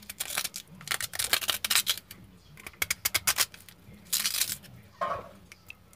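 A knife cutting through raw, peeled sweet potato held in the hand: quick crisp snapping cuts in about three runs, the last one short.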